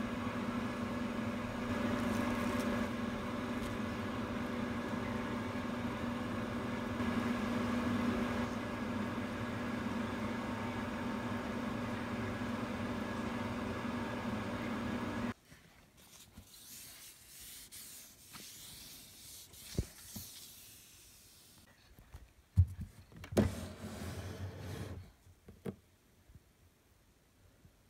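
A steady motor hum with several held tones in a kitchen over a simmering stew pot. About fifteen seconds in it cuts off abruptly, leaving quiet room sound with a few sharp knocks.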